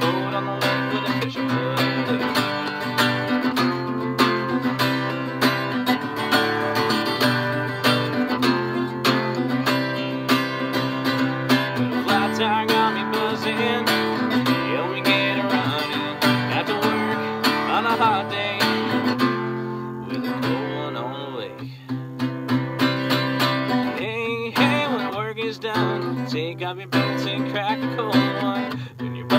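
Acoustic guitar strummed steadily in an instrumental break between the verses of a country-style song.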